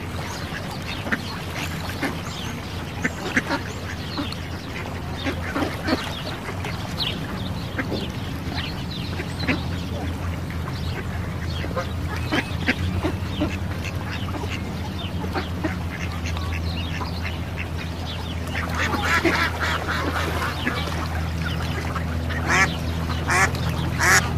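Ducks quacking repeatedly in short calls, with a busier, louder run of calls in the last few seconds.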